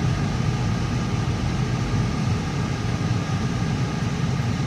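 Steady road and engine noise heard inside the cabin of a moving car: an even low rumble with a fainter hiss above it.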